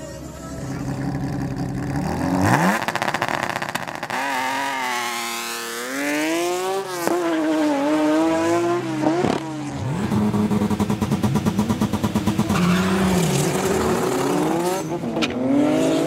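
Drag-racing car engines at full throttle: the pitch climbs in repeated sweeps and drops sharply at each gear change. A fast, even stutter comes in from about ten to twelve seconds in.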